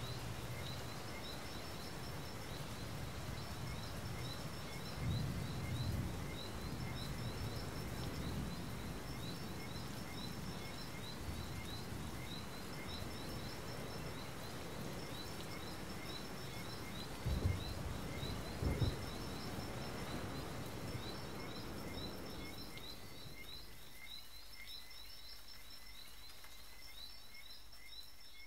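Faint ambient soundscape: a short high chirp repeating about twice a second over a low hiss, with two brief low thuds about two-thirds of the way through, fading down near the end.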